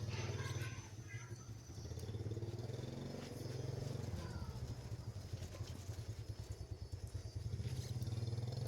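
Motorcycle engine running, a low pulsing drone that eases off about a second in and picks up again around two seconds and near the end.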